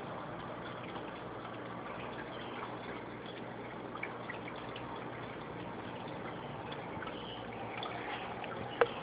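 Aquarium water circulating steadily, with a faint trickling and small drip-like ticks over a low steady hum. A single sharp click near the end.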